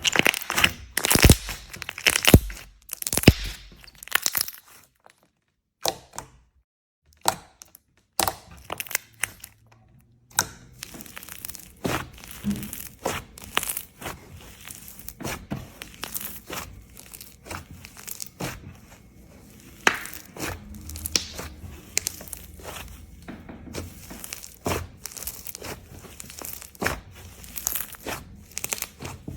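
Slime being pressed and stretched by hand, giving sharp crackling and popping clicks. There is a run of loud cracks at first, a short pause, then a steady stream of quieter crackling.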